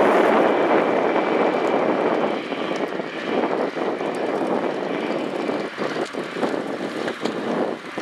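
John Deere 9460R four-wheel-drive tractor's diesel engine working under load as it pulls a loaded Bunning tri-axle manure spreader, along with the running gear of the tractor and spreader. The sound is loudest at first and gets quieter and more uneven after about two seconds as the rig moves away.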